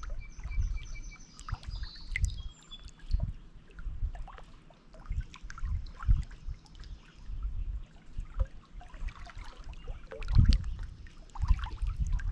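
Small lake waves lapping and splashing against shoreline rocks in irregular low slaps, some louder near the end. Birds chirp over it, with a high trilling song in the first couple of seconds.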